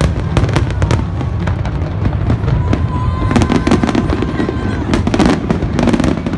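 Aerial fireworks going off in rapid succession: many sharp cracks and bangs over a continuous low rumble. A thin whistling tone is heard from about three to five seconds in.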